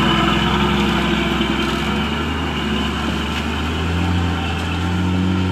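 Engine of a truck loaded high with sugarcane running steadily as it creeps along a dirt track, its note rising a little about four seconds in.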